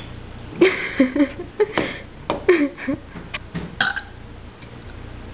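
A person belching deliberately several times in a row: a long croaky burp near the start, then a few shorter ones.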